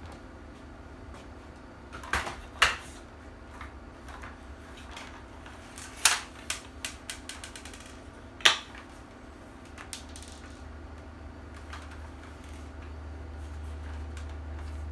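Hard clicks and knocks of a replica pulse rifle being picked up and handled, a few sharp clacks with quieter clicks between. A low steady hum runs underneath and grows louder near the end.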